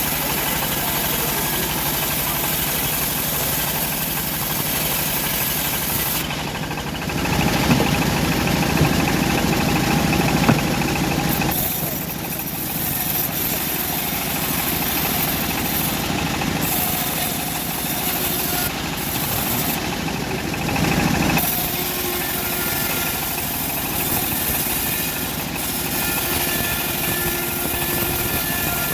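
Homemade bandsaw mill running steadily while sawing old teak, with two louder stretches, one about seven seconds in lasting roughly four seconds and a shorter one near twenty seconds.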